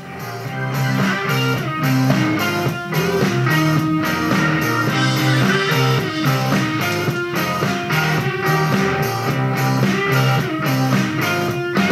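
Guitar-led rock music with a steady beat, coming up in volume over the first couple of seconds and then holding steady.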